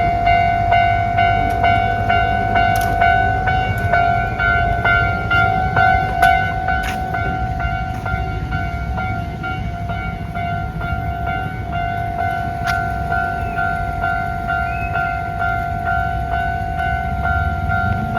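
Japanese level-crossing warning bell ringing in an even, repeating rhythm, over the low rumble of a train passing through the crossing, with a few sharp clicks.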